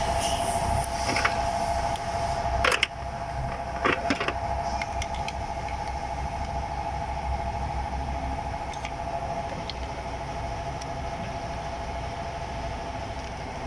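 A steady mechanical hum with a few sharp metallic clicks and knocks in the first four seconds and faint ticks after: hand tools working on the valve train of a Ford 4.6L V8's bare cylinder head.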